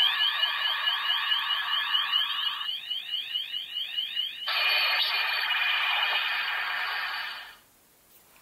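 CSM Kamen Rider 1 Typhoon transformation belt playing one of its electronic special-move sound effects through its small speaker: a fast run of rising chirps, about four a second, over a rushing noise, then a burst of hiss-like noise that cuts off near the end.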